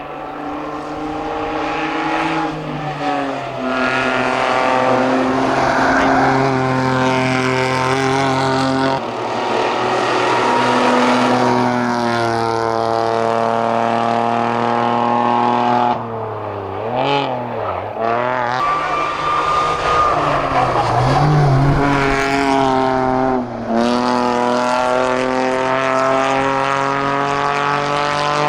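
Toyota Aygo race car's small petrol engine driven flat out up a hillclimb. The engine note climbs through each gear and drops at every upshift, every few seconds. About halfway through the revs waver and dip as the driver lifts and shifts down for a corner, then climb again. It grows louder over the first few seconds.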